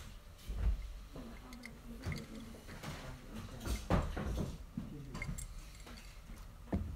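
Scattered light knocks and clinks of a glass and other objects being handled on wooden tables, the loudest about half a second in and about four seconds in, with another knock near the end.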